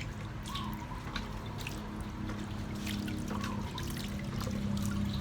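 Running water trickling and splashing steadily, with scattered small drips and splashes.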